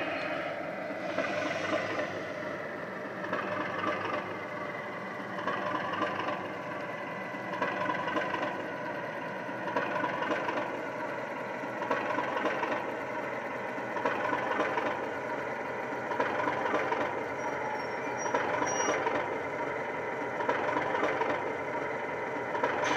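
Model Class 37 diesel locomotive's DCC sound decoder (LokSound with the Legomanbiffo Wensleydale sound project) playing the English Electric engine through an EM2 speaker as the locomotive runs slowly. The engine sound swells about every two seconds, with a whistling tone that slides down in pitch over the first ten seconds.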